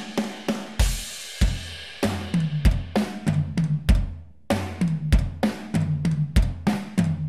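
Acoustic drum kit groove played back from a multitrack recording: kick, snare, hi-hat and cymbals, run through the jsCompShaper FET-style compressor on a parallel drum bus. A cymbal crash rings about a second in. The playback cuts out briefly just after four seconds and the beat picks up again.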